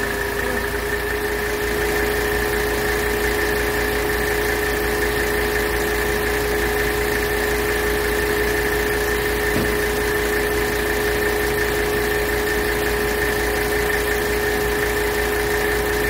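Mercedes 300TD's five-cylinder diesel engine idling steadily with the AC on max and the electric auxiliary cooling fan running, which gives a steady whine over the engine. The fan has switched on as the system charges, a sign that the AC pressure switch is working.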